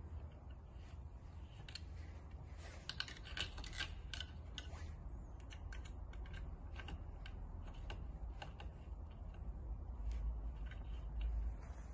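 Small scattered metal clicks and taps as bolts with spring washers are fitted by hand into the aluminium X-axis mounting bracket of a 3D printer frame, thickest about three to five seconds in.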